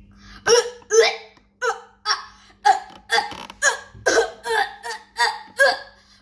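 A boy gagging over and over with a stick pushed into his mouth as a pretend throat swab: short, loud retching grunts about two a second.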